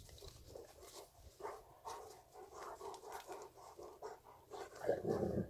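Presa Canario dogs panting and making short vocal sounds as they play-wrestle, with a louder outburst near the end.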